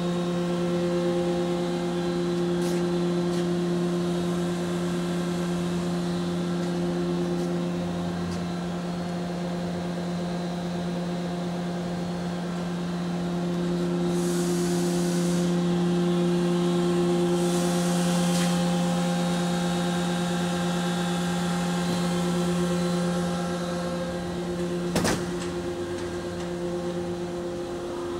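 Steady electric motor and pump hum from a running CNC horizontal boring mill and its high-pressure coolant unit. There are two short hissing bursts about halfway through and one sharp click near the end.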